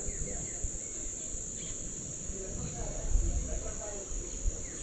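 A chorus of tropical forest insects keeping up one steady, high-pitched drone, with a low rumble underneath.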